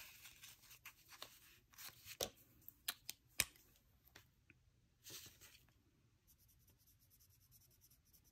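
Faint handling of paper bills: a few soft taps and rustles, then the quiet scratching of a felt-tip marker colouring in a square on a paper tracker near the end.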